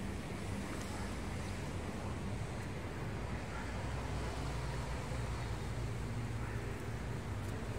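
Wind on a phone's microphone: a steady low rumble and rush.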